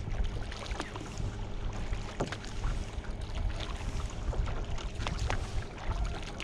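Kayak being paddled: water dripping and splashing off the paddle blades in many small irregular ticks, over a steady low rumble of wind on the microphone.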